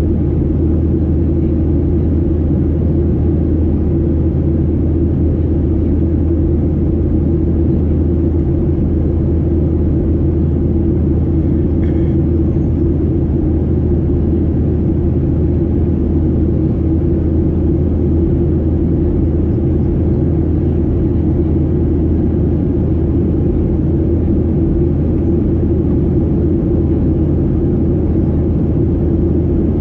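Steady cabin drone of a Boeing 737-800 in flight, heard from a window seat: the CFM56 engines and airflow make an even low rumble with no change in level.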